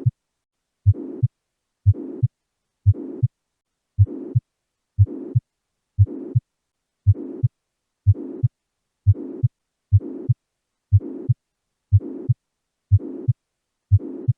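Heart sounds heard through a stethoscope recording, about one beat a second, with a murmur: each beat has a low first sound, a rough noise filling the short gap, and then a low second sound. The murmur fills the gap between the first and second sounds, which marks it as a systolic murmur, a sign of a heart valve problem.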